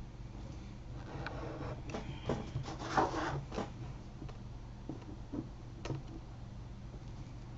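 Small craft knife cutting short lines through paper over card on a cutting mat: a few short scratchy strokes, busiest near the middle, with a couple of light ticks afterwards.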